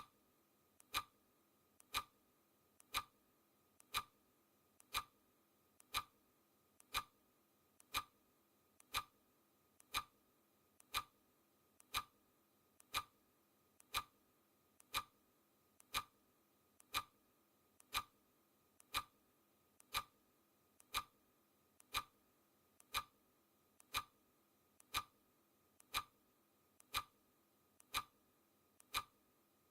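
Clock ticking sound effect: a sharp tick exactly once a second, each with a short ringing tone, and a fainter click between each pair of ticks.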